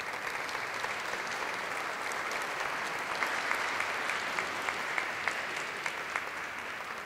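Audience applauding to welcome a speaker, a steady patter of many hands that dies away near the end.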